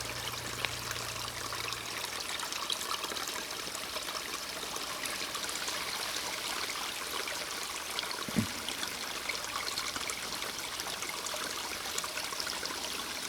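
Small rain-fed stream running over rocks and short drops, a steady splashing and burbling. A faint low hum fades out in the first two seconds, and there is a soft thump about eight seconds in.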